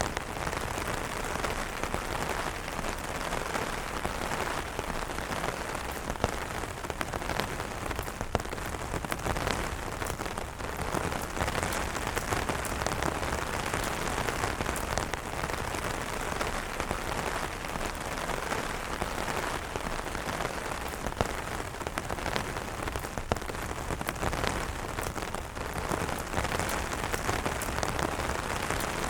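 Steady rain falling on an umbrella: a constant hiss dense with small sharp drop ticks, a few of them louder than the rest.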